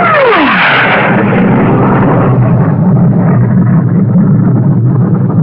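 Jet aircraft sound effect: a whine falls sharply in pitch in the first second over a rush of noise, then a loud, steady rumbling roar goes on.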